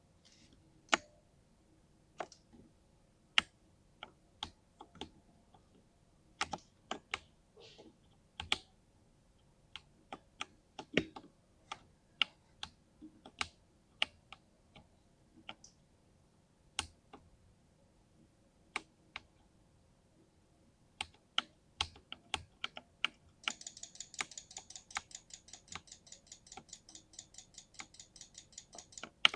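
Keystrokes on a 60% mini mechanical keyboard with silver linear switches: separate, irregular key presses, then about three-quarters of the way through a fast, even run of clicks, about seven a second.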